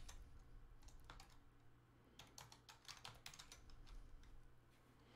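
Faint computer keyboard typing: scattered keystroke clicks in short runs as a text label is typed.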